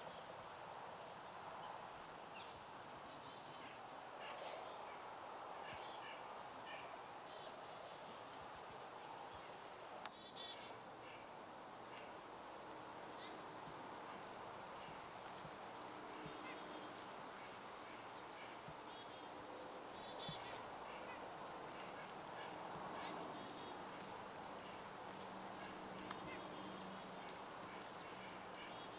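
Birds calling outdoors: scattered short, high chirps over a steady background hiss, with a few louder calls about a third of the way in, two-thirds of the way in and near the end.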